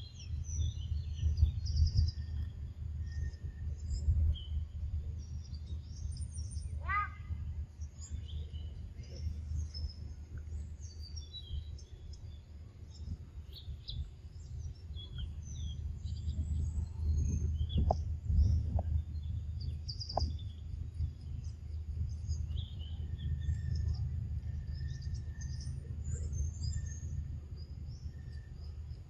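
Forest birds chirping in short, high calls over a steady low rumble, with one brief louder call about seven seconds in.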